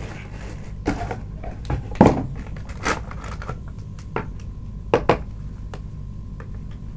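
Metal spoon knocking and scraping against a plastic bowl and a foil pouch while scooping milk powder: a handful of sharp clicks, the loudest about two seconds in and a close pair around five seconds.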